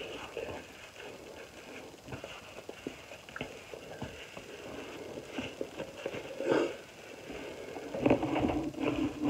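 Quiet rustling and small handling clicks as a wet face wipe is rubbed over the face, with a brief louder rustle about six and a half seconds in and denser rubbing near the end.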